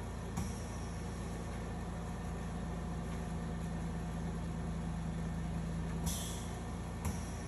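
Steady low mechanical hum with a single droning tone, broken by three short hissing bursts: one about half a second in and two about a second apart near the end.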